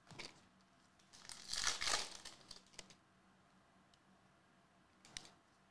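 Foil trading-card pack wrapper crinkling and tearing for about a second and a half, then a single light click near the end.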